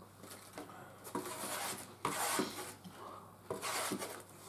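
Eating sounds: metal forks scraping and scooping food in foam takeaway trays, with chewing, in a few short bursts.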